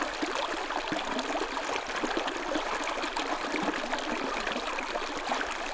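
Small spring creek babbling steadily as it riffles over rocks.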